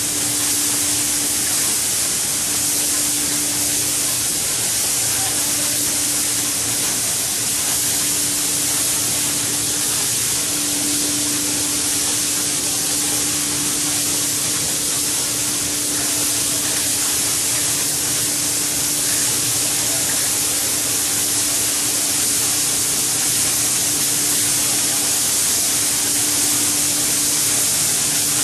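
Automatic shoe-outsole spraying machine running, its compressed-air spray guns giving a steady hiss. Under the hiss is a low hum that cuts in and out every second or two.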